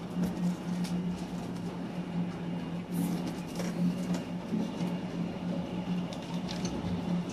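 Hailstones falling and striking hard surfaces: a steady hiss of the storm with many irregular sharp clicks and knocks of stones hitting. A steady low hum runs underneath.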